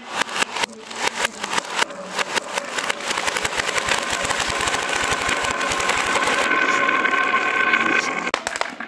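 Many glass marbles clacking and rolling down zigzag grooves carved in pine boards: a few separate clacks at first, then a dense rattle that builds into a steady rolling rumble from about three seconds in.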